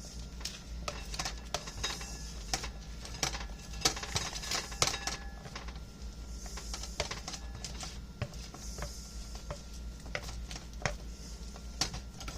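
Kitchen utensils and dishes clinking and scraping in irregular taps and knocks, over a steady low hum.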